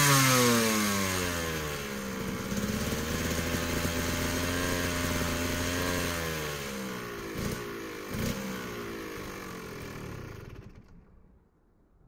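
Two-stroke dirt bike engine dropping from a rev into a steady idle, then slowing further, with two short throttle blips about two-thirds of the way through. It runs down and falls silent near the end.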